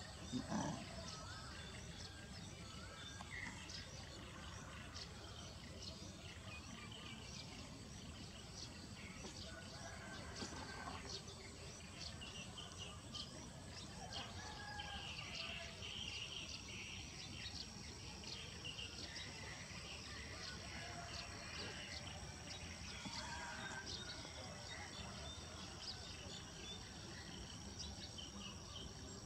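Faint outdoor ambience: insects buzzing and scattered short bird chirps, with a steady high insect tone coming in about halfway through. A brief thump sounds just after the start.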